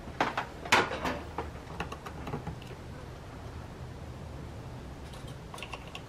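Sharp clicks and knocks of metal battery clip leads being handled and clamped on. The loudest cluster comes in the first second, with a few lighter ticks around two seconds in and again near the end.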